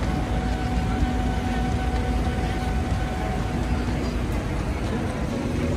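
Steady low rumble of a moving vehicle, with a faint steady hum over it.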